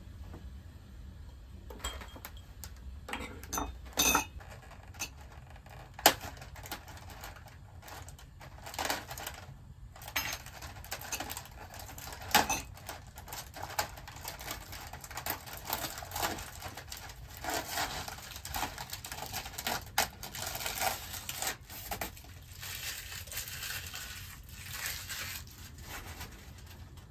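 Rustling and crinkling of a plastic food packet being opened and handled, mixed with scattered light clicks and clinks of small glasses and dishes being set down. One sharp click about six seconds in is the loudest.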